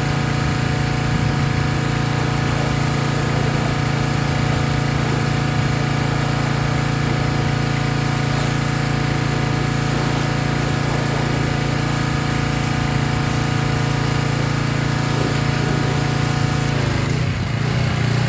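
Small gasoline pressure-washer engine running steadily at full speed, driving a newly installed CanPump vertical axial pressure-washer pump. The engine note wavers and dips briefly near the end.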